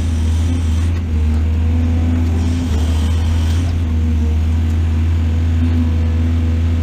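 Excavator's diesel engine running steadily, a deep continuous drone that holds an even pitch and level.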